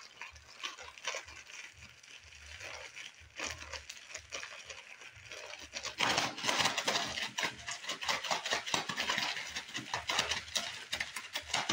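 Plastic zip-top bag crinkling and crackling, with slime squelching inside, as the bag is squeezed and shaken by hand to work activator into sticky slime. The crackling grows louder and busier about six seconds in.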